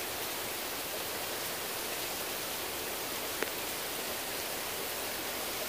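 Heavy rain pouring down in a downpour, a steady, even hiss.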